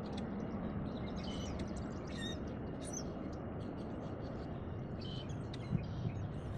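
Birds chirping now and then, short high calls, over a steady low background noise.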